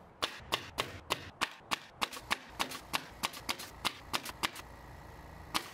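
Nails being driven into T1-11 siding panels: a quick run of about twenty sharp strikes, about four a second, that stops about four and a half seconds in, then one more strike near the end.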